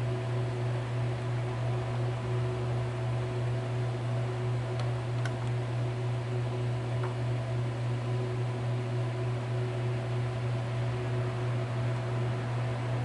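A steady low hum over an even hiss, with a few faint ticks about five to seven seconds in.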